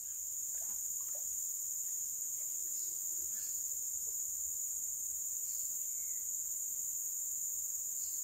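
Forest insect chorus: a steady, high-pitched drone of crickets or cicadas that holds without a break.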